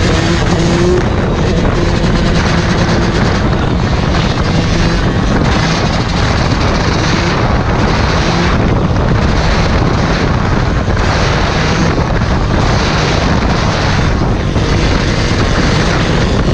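Dirt bike engine running at speed under the rider, heard together with heavy wind rush on the microphone.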